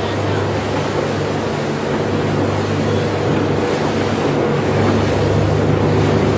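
A boat's engine runs with a steady low drone under wind buffeting the microphone and the rush of water along the hull. It grows a little louder near the end.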